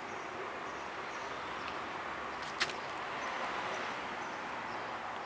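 Steady outdoor background noise with one short, sharp click about two and a half seconds in.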